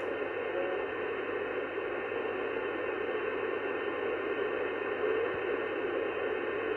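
Steady hiss of band noise from an sBitx transceiver receiving 11 m single sideband with no station coming through, cut off sharply above about 3 kHz by the receive filter.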